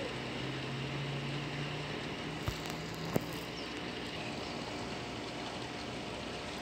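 Steady outdoor background noise, with a low hum in the first half and two short clicks about two and a half and three seconds in.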